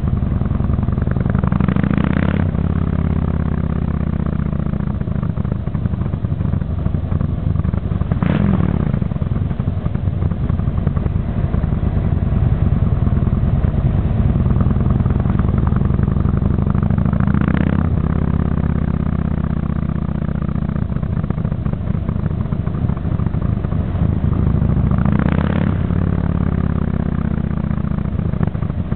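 Motorcycle engine running at road speed, with steady wind rush on the microphone of the moving bike. Four short, sharper noises stand out several seconds apart.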